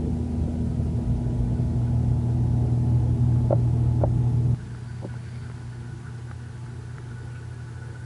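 Washing machine motor running with a steady low hum, heard from inside the washer tub. About four and a half seconds in, the loud hum drops suddenly to a quieter steady hum, just after a couple of faint clicks.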